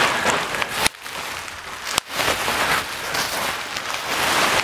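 Bubble wrap and plastic packaging crinkling and rustling as they are pulled off and handled, a dense crackle that breaks off briefly about one and two seconds in.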